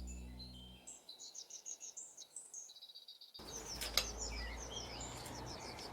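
Small birds chirping and twittering in quick high-pitched series as the background music fades out. About a third of the way in, outdoor background noise rises, with one sharp click about four seconds in.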